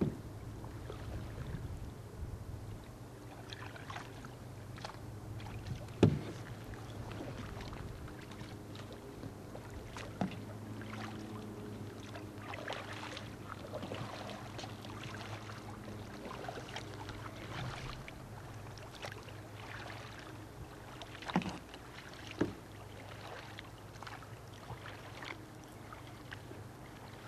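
Paddling sounds from a small Pelican fishing kayak: a double-bladed paddle working the water, with a few sharp knocks. The loudest knock comes about six seconds in, and two more a second apart come near the end.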